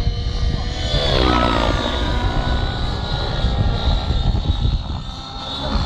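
Nitro-fuelled radio-controlled helicopter flying aerobatics overhead: its glow engine and rotors run at high speed, with the pitch swooping down about a second in as it manoeuvres, over a steady low rumble.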